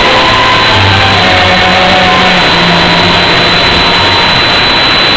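Loud tango music overloaded and distorted by the recording into a dense, steady noise, with a few held low notes showing through in the middle.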